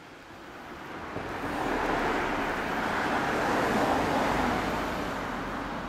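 A road vehicle passing by: a steady rushing noise that swells to a peak a few seconds in and then fades.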